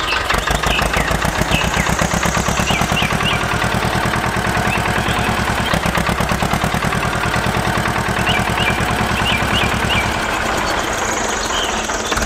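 Tractor engine sound running steadily with a fast, even throb, dropping a little near the end. Birds chirp faintly now and then.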